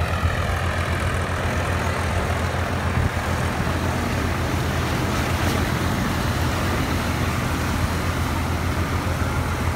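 A bus's engine running with a steady low hum as the bus wades through deep floodwater, with water rushing and splashing along its side.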